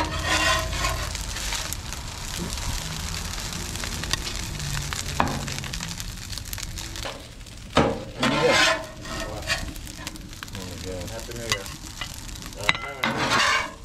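Fried rice sizzling on a Blackstone flat-top griddle while a metal spatula scrapes it across the steel and scoops it onto a plate, with louder scrapes about eight seconds in and again near the end.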